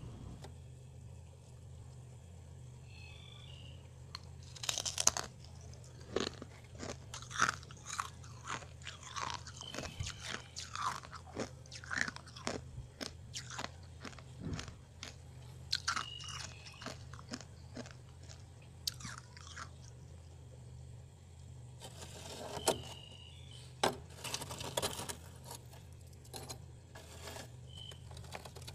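Freezer frost being bitten and chewed: a series of sharp, crisp crunches in irregular clusters, over a steady low hum.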